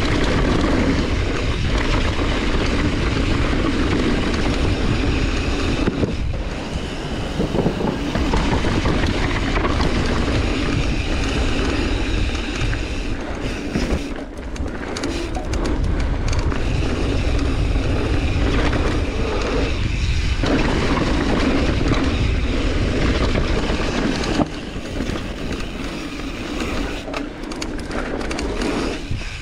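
Mountain bike riding down a dirt trail, recorded on a GoPro: wind buffeting the microphone over the steady rush of the tyres, with a few brief dips.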